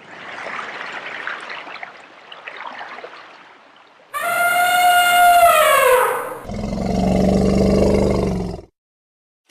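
A hissing swell of noise, then an elephant trumpet call that slides down in pitch, followed by a deep roar that cuts off suddenly.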